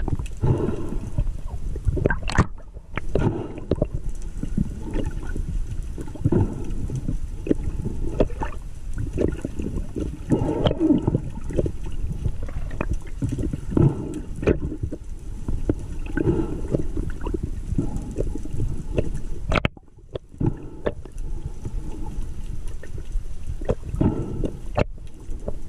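Muffled underwater noise heard through a camera housing while a diver swims: water rushing and gurgling with uneven swells, and scattered sharp clicks and knocks. It briefly goes quieter about twenty seconds in.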